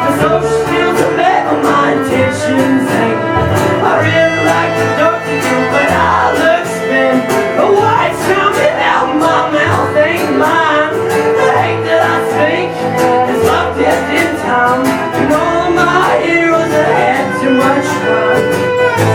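A live band playing a country-style song: a singer over guitars with a steady beat.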